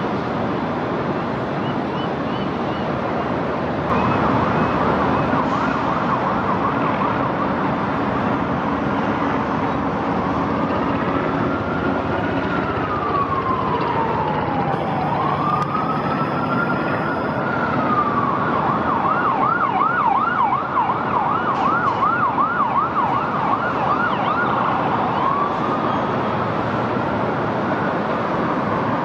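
Emergency vehicle siren over steady city noise. A fast yelping warble starts about four seconds in and changes to slow rising and falling wails. It goes back to a fast yelp, then to a wail again near the end.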